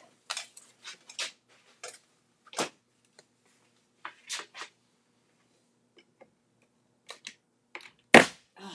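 A pin nailer fires once near the end, a single sharp, loud snap as it drives a pin to fasten a resin rose to a wooden dresser. Before it come scattered light knocks and rustles of handling.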